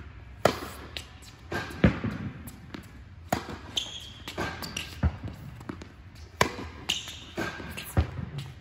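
Tennis racket striking balls, with the balls bouncing on an indoor hard court: a sharp pop about every one and a half seconds, six louder hits among smaller taps.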